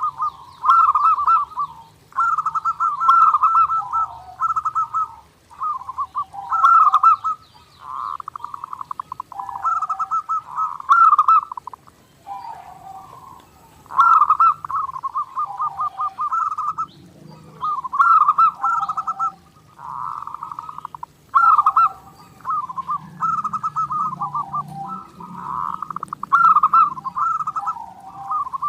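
Zebra dove (perkutut) cooing over and over: rolling, trilled coo phrases of a second or two each, following one another with short gaps. Faint high chirps sound above it.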